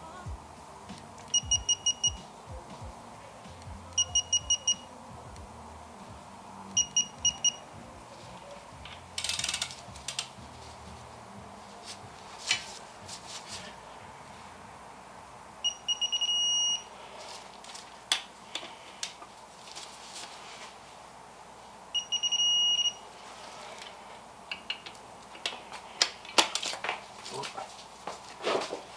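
Digital torque wrench beeping as the rod-cap bolts are torqued to 55 foot-pounds: three short bursts of quick high beeps, then two longer steady beeps later on, the kind such a wrench gives as it nears and then reaches its set torque. Metal clicks and clanks of the tools come in between, several near the end.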